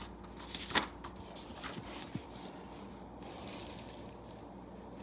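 Paper rustling as a picture-book page is handled and turned, with a few soft crackles and taps in the first two seconds, then faint room tone.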